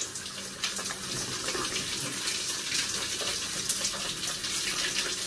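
Handheld shower running hot at strong water pressure, spraying onto a man's head and shoulders as he rinses his hair, with a steady hiss and irregular splashing in a tiled cubicle.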